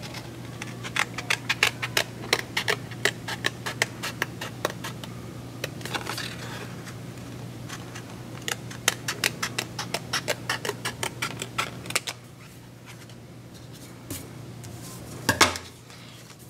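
Scissors cutting through folded cardstock: quick clicking snips, one after another, that stop about twelve seconds in. A single knock near the end.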